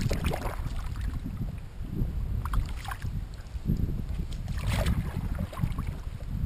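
Kayak paddle strokes dipping and splashing in the water, three strokes about two seconds apart, over a steady low rumble of wind on the microphone.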